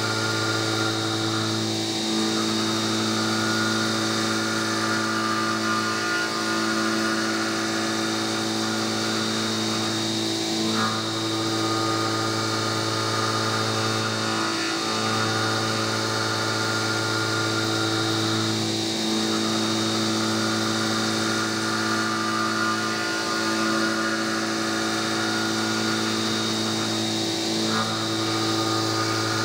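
CNC milling machine cutting an aluminium block under flood coolant: a steady machine hum with a hiss over it, briefly dipping about every four seconds.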